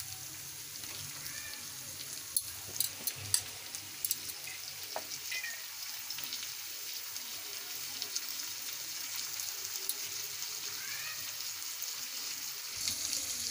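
Hot oil sizzling steadily in a frying pan as soaked chana dal (split Bengal gram) is added to a tempering of onions, green chillies and curry leaves. A few light clicks come two to three seconds in.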